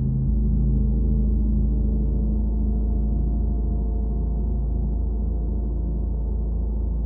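Large Wuhan feng gong, about 40 inches across, ringing on with a deep steady hum and a wash of higher overtones, slowly fading.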